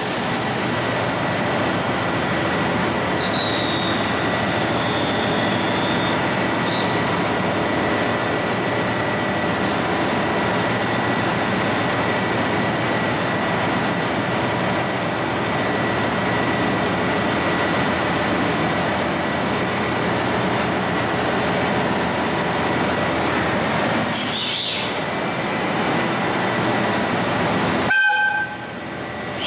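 Steady hiss of heavy rain pouring onto the station and tracks, mixed with the idling diesel engines of a KiHa 283 series express railcar waiting at the platform. A brief toot sounds near the end.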